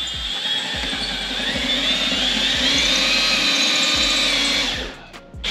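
Handheld power drill boring a pilot hole into the wall for a lag bolt: a steady motor whine that rises slightly in pitch partway through and stops shortly before the end, then starts again briefly right at the end.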